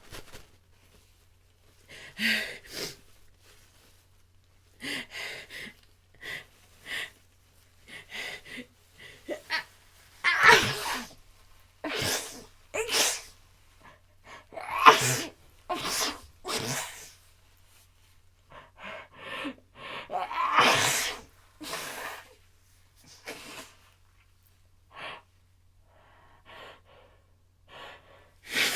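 A person's sneezing fit. Quieter build-up sounds come first, then a run of loud sneezes in quick succession from about ten seconds in, with a few smaller ones near the end.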